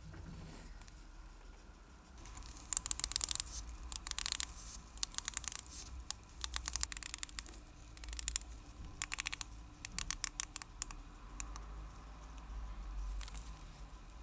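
Rapid bursts of fine metallic clicking from a Seiko Kinetic watch being worked on by hand, repeated in short runs of quick ticks.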